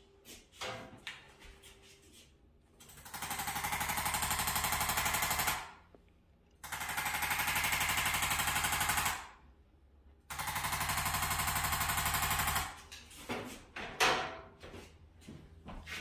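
Arthrostim electric instrument-adjusting tool firing rapid mechanical impulses into the back in three bursts of about two and a half seconds each, a fast even tapping. This is a chiropractic instrument adjustment, a gentler alternative to manual adjustment for a low back prone to spasm. A few light knocks and handling clicks come before and after the bursts.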